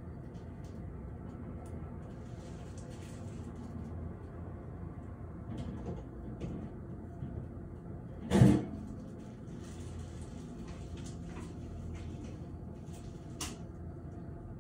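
Steady low rumble of city ambience heard from a high-rise, like distant traffic. A loud thump comes a little past the middle and a sharp click near the end.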